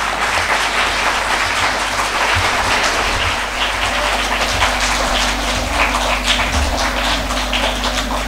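An auditorium audience applauding steadily: many hands clapping together at the close of a speech.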